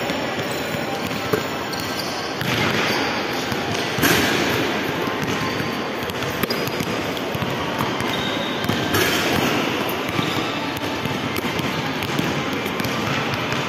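Basketballs bouncing and being shot during a three-point shooting drill, over a steady background din of a busy shopping-mall hall.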